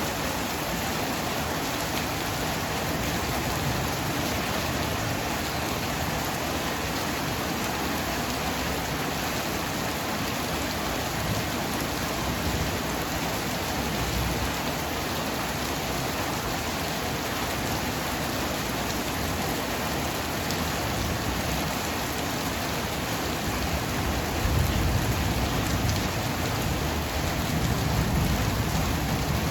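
Heavy rain pouring steadily, a dense even hiss of rain on surfaces, with a low rumble of distant thunder swelling twice near the end.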